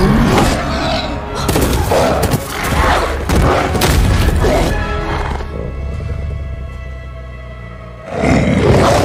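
Dramatic film score with booming hits and crashes over the first half. It settles into a held chord, then swells loudly again near the end.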